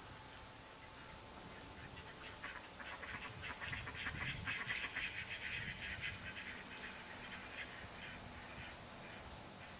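A flock of Cayuga ducks quacking in a rapid run of short calls. The calls start about two seconds in, are loudest around the middle and tail off near the end.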